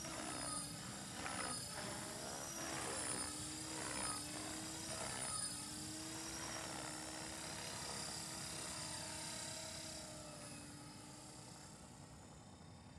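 Align T-Rex 500 electric RC helicopter in flight: the steady whine of its motor and rotor, wavering slightly in pitch, in what sounds like idle-up. It fades gradually over the last few seconds.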